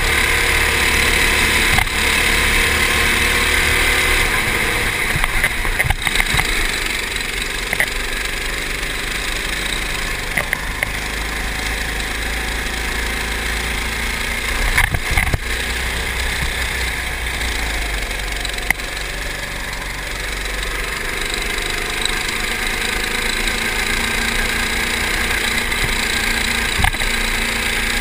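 Go-kart engine running hard on track, heard from on board, its pitch rising and falling as the kart speeds up out of corners and slows into them. A few sharp knocks now and then.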